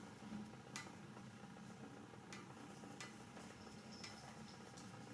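Near silence with a handful of faint, sharp ticks from a crochet hook working acrylic yarn through stitches.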